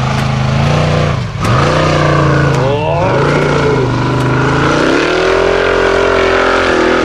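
Formula Offroad buggy's engine revving hard under load on a steep hill climb. The pitch dips sharply twice, about a second and about three seconds in, then rises and holds high and steady.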